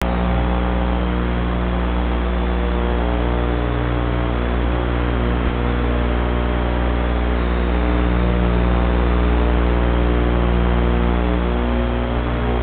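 Steady electrical hum and hiss: a buzz of evenly spaced low tones over static. A few of the tones shift near the end.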